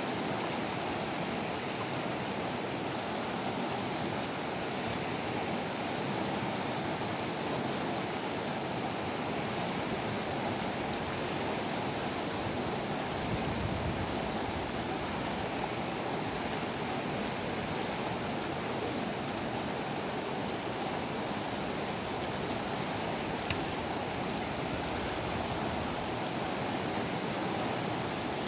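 Fast river rapids rushing over boulders, a steady, unbroken hiss of churning water.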